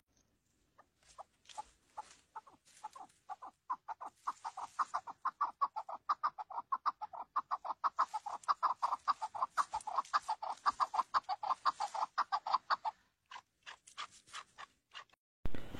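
Chukar partridge calling: a long run of short, rapid chuk notes, a few scattered at first, then about five a second for some ten seconds, thinning out again near the end.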